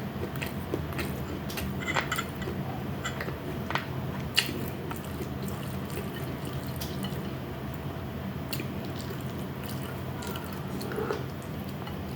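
Eating sounds: scattered short wet clicks and smacks of chewing and biting food, the sharpest about four and a half seconds in, over a steady low hum.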